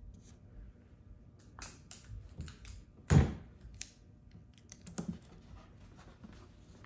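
Hands pressing and smoothing a paper template and tape against a hollow plastic storage bin: scattered light clicks and rustles, with a louder thump about three seconds in and a smaller one about five seconds in.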